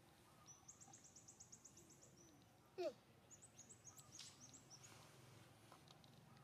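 A small bird singing faintly: two rapid trills of high repeated notes, the second falling away near its end, with one brief louder squeak about three seconds in.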